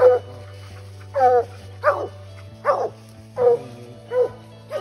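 Coon dogs barking treed: a steady run of loud, pitched barks a little under a second apart, the sign that they have a raccoon up a tree.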